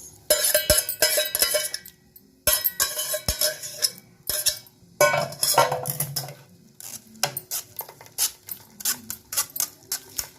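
Metal kitchen pots and utensils clattering and clinking in bursts, followed by a run of quick light taps and clicks, as the curdled milk is handled for straining.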